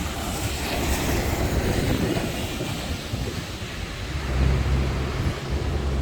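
Traffic on a wet street: a vehicle passes with a rushing hiss of tyres on the wet road, swelling about a second in. In the second half a low, steady motor hum comes in.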